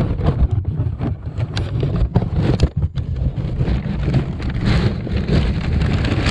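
Vehicle running with a steady low rumble and wind buffeting the microphone, with a few sharp clicks about two to three seconds in.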